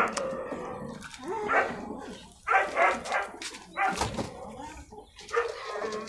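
A dog barking several times in short, irregular barks.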